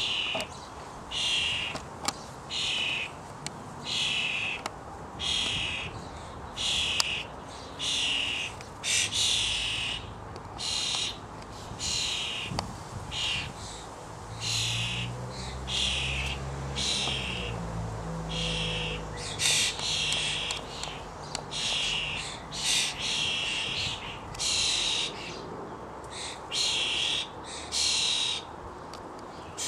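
Juvenile starlings giving harsh, rasping begging calls over and over, about one call a second, each around half a second long: young birds calling to be fed by their parents.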